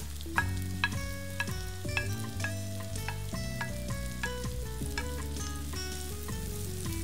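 Chopped onion and mushrooms sizzling in butter in a non-stick frying pan, with a wooden spatula scraping and stirring. Light background music with a stepping melody plays over it.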